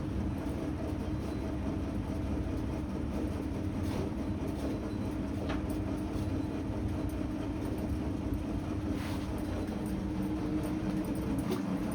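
Steady low mechanical hum and rumble, with a few faint knocks.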